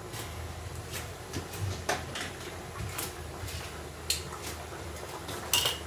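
Pot of pasta boiling on a gas burner, a low steady rumble, with scattered light clicks and knocks of kitchen utensils being handled.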